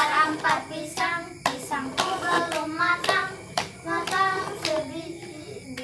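Children singing a chant while clapping and slapping their hands in a hand-clapping game, the claps falling at roughly two a second.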